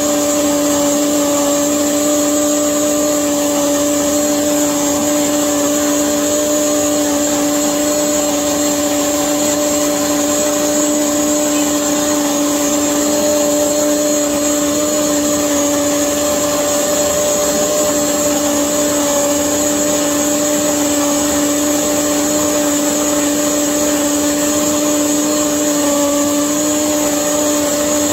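Vitamix blender running steadily while blending a liquid fruit smoothie, its motor holding one even pitch throughout.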